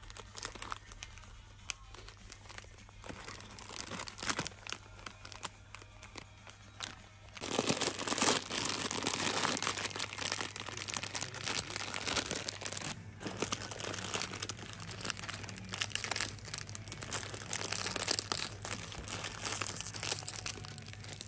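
Plastic snack packets crinkling as they are handled and pulled off a shelf. Light, scattered rustles at first, then dense, louder crinkling from about a third of the way in.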